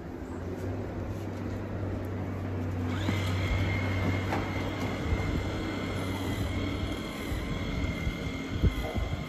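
Handheld corded electric grooming tool switching on about three seconds in and running with a steady high whine as it is worked on a cow's tail. Under it is a low steady hum that fades out about seven seconds in, and a sharp knock comes near the end.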